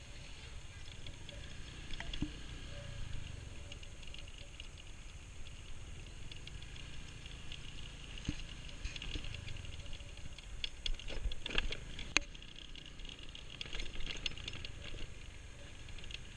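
Motor scooter riding slowly over a bumpy dirt road: a low, steady rumble of engine and wind, with scattered rattles and knocks from the bike over the bumps, thickest a little past the middle.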